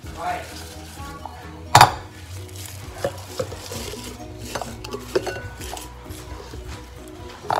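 Scattered knocks and clinks of a blender cup and bowl being handled as spinach leaves are packed into the cup, over quiet background music; the loudest knock comes about two seconds in.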